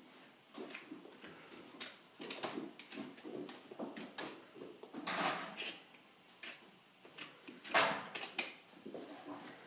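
A farrier working a horse's hoof with a hand tool: a run of short scrapes and knocks, with two louder, longer noises about five and eight seconds in.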